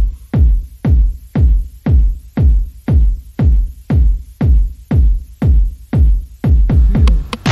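Background electronic music driven by a heavy kick drum at a steady two beats a second.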